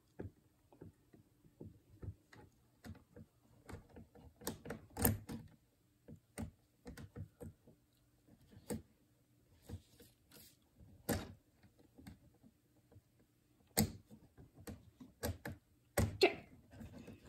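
Plastic Lego bricks clicking and clattering as they are handled and pressed together: irregular sharp clicks and taps, a few louder knocks among them.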